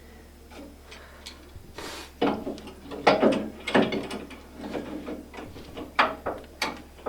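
Metal treadmill parts being worked into place by hand: a run of irregular ratchet-like clicks and clanks, starting about two seconds in.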